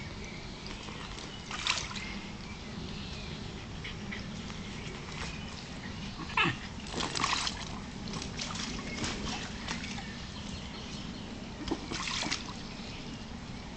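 Pool water splashing in a few short bursts as a Cairn terrier stirs it, with brief dog sounds among the splashes. The bursts come about two seconds in, in a cluster through the middle, and once more near the end.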